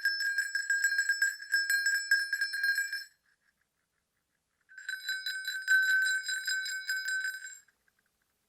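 Sleigh bells shaken in two bursts of about three seconds each, a dense rapid jingle over a steady bright ringing, with a short silence between.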